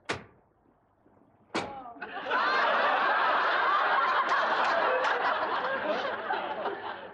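Two sharp bangs about a second and a half apart, then a studio audience breaking into loud, sustained laughter.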